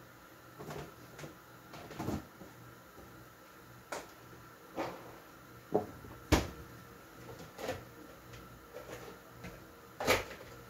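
Kitchen cupboard and fridge doors being opened and shut and things knocked about while someone rummages inside: a string of separate knocks and clatters, the loudest about six seconds in and again about ten seconds in.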